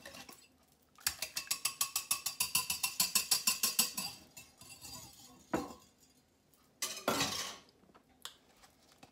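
Wire whisk beating eggs in a glass bowl, fast even strokes, about eight or nine a second, clinking against the glass for about three seconds. Then, after a pause, two separate short clunks.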